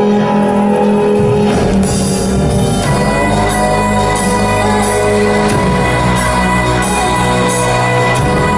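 Music with long held chords; a deep bass comes in about a second and a half in, and a gliding tone follows near three seconds.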